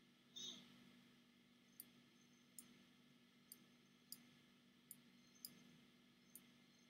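A short chirp-like sound about half a second in, then seven faint, sharp clicks spaced roughly a second apart or less.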